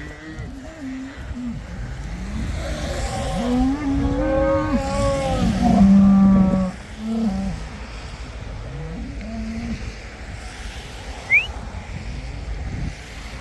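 Cattle mooing, several long calls one after another, over a steady low rumble. A short high chirp near the end.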